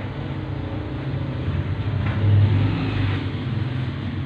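A low mechanical hum that grows loudest about halfway through and then eases off.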